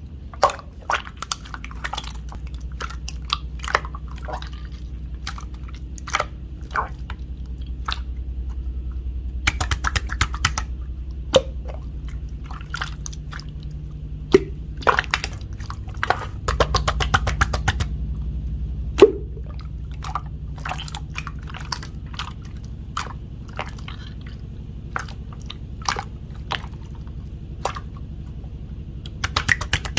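Hands mixing and kneading pink slime: sticky squelches and air pockets popping in sharp clicks, in irregular clusters throughout, over a low steady hum.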